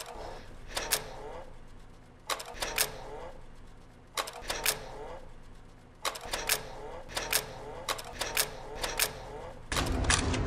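Sharp mechanical clicks in small clusters over a low hum, spaced about two seconds apart at first and coming faster, about two a second, in the second half. Shortly before the end a louder rumble with a sustained tone comes in.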